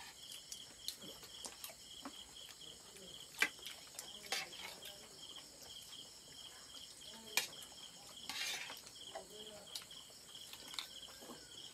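Crickets chirping steadily in a fast, even pulse, with a few sharp clinks of steel plates and dishes being handled during a meal.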